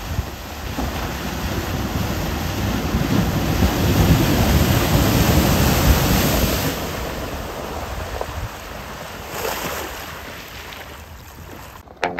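Water rushing and spraying as a Jeep Gladiator ploughs through a shallow muddy creek. The splashing builds to its loudest in the middle and dies away after about ten seconds.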